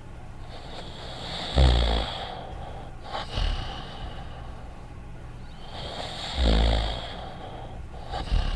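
Cartoon dog snoring: two long snores about five seconds apart, each with a deep low rumble, and a shorter breath after each.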